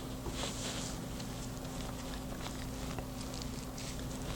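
Faint rustling of hair and a few small clicks as a hair crimper is squeezed and worked onto a section of hair that it will not close on, over a steady low hum.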